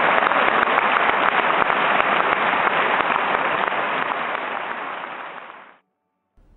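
Audience applauding, a dense, steady clatter of many hands clapping that fades away over the last couple of seconds and then cuts off.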